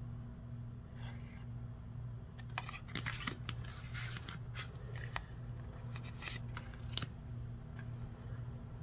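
Oracle cards being handled: a card laid onto a pile of cards and the next one slid off, giving a series of brief scrapes, rubs and light taps of card stock, over a steady low hum.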